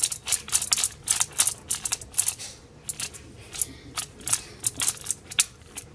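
Moyu magnetic Pyramix being twisted by hand: quick, irregular plastic clicks as its layers snap into place, several a second with a few short pauses.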